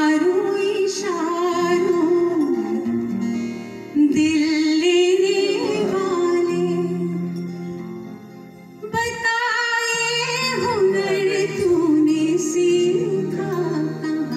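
A woman sings an Indian song into a microphone through the hall's PA, with live accompaniment from keyboards and strings. She holds long notes with a wavering pitch, with short breaks between phrases about four and nine seconds in.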